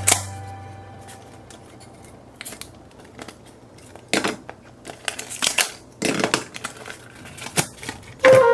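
Scattered short snips, crinkles and taps of hands working craft materials, loudest in a cluster around the middle.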